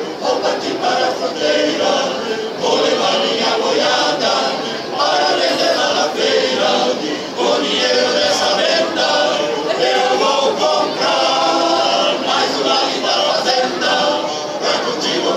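Men's choir singing a cappella, with long held notes.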